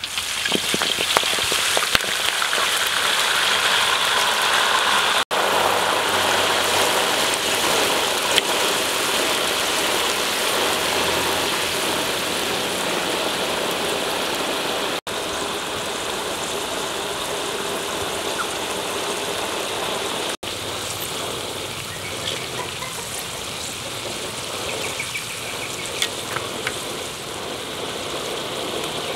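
Grasshoppers deep-frying in a wok of hot oil: a loud, steady sizzle that starts as they are tipped in and eases a little toward the end.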